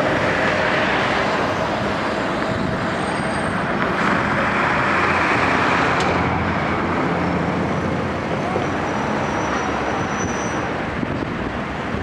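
KiHa 75 diesel multiple unit running slowly on the track, its diesel engines and wheels on the rails making a steady rumble that swells and then eases, with a sharp click about halfway through.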